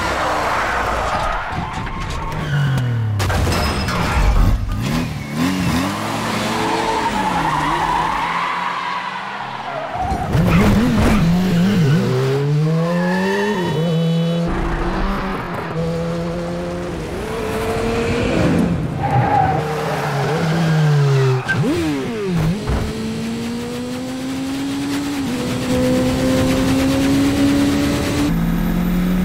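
Car engines revving hard in a chase, their pitch climbing and dropping back again and again through gear changes, with tyres squealing and skidding.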